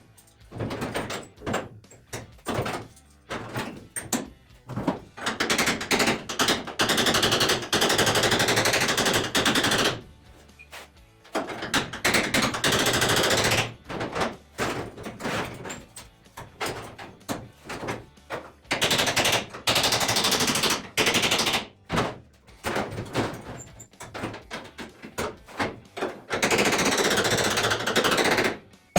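Sheet-metal bodywork on a 1968 Mini shell: four loud bursts of a rapid-fire power tool, each lasting a couple of seconds, with short sharp knocks on metal in between.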